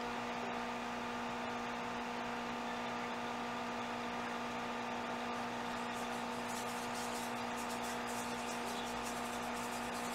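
Steady electrical hum, several even tones over a faint hiss, with a few faint ticks in the second half.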